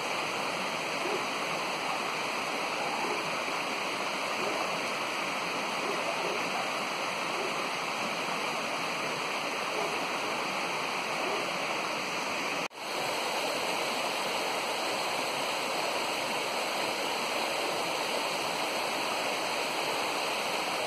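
Small stream rushing steadily over its bed at the foot of a storm-collapsed roadside bank, with a momentary break in the sound a little over halfway through.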